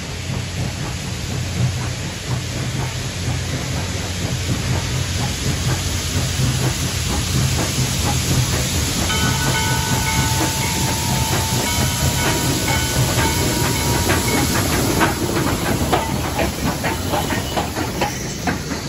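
Western Maryland 1309, a 2-6-6-2 articulated steam locomotive, pulling a passenger train past close by: a deep steady exhaust with steam hissing, then many short clicks of wheels over the rails as the tender and coaches go by near the end. A steady high ringing tone of several pitches together sounds for about five seconds midway.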